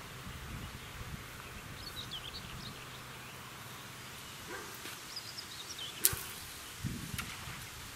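Quiet outdoor ambience with a few faint, high bird chirps twice, then one sharp click about six seconds in and a weaker click with some low knocks of handling near the end.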